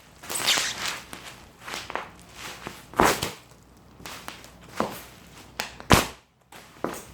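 Plastic bubble wrap being crushed and popped: irregular sharp pops, the loudest about three seconds and six seconds in, with crinkling and rustling between them.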